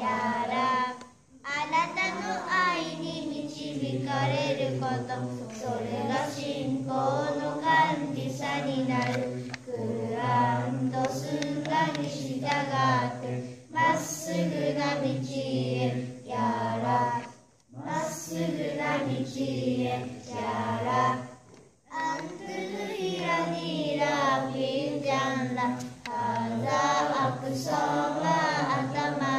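A group of young children singing a nasheed together without instruments, in sung phrases with three short breaks where the sound drops away entirely.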